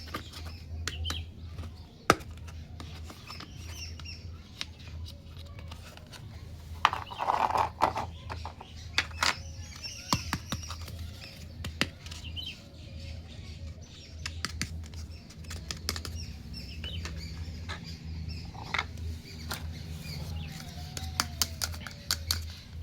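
Small plastic toy kitchen pieces handled and set down, giving scattered sharp clicks and taps, with a brief rustle about seven seconds in, over a low steady hum.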